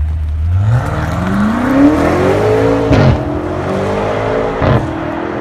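Hyundai SUV with a quad-tip exhaust accelerating away under hard throttle, its engine note climbing in pitch, dropping at a gear change about three seconds in, then climbing again before another shift near the end.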